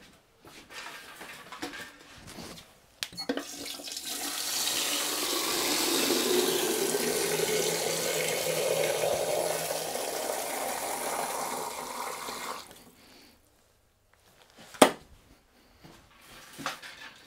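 Water running from a tap into a vessel for about nine seconds, its pitch rising steadily as the vessel fills; the water is drawn to be boiled. A single sharp click follows a couple of seconds after the tap stops.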